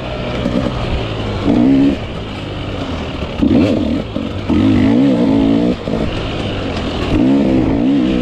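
250-class motocross bike engine under race riding, the note climbing and dropping as the throttle is worked, in repeated louder surges of a second or so between throttle-off stretches.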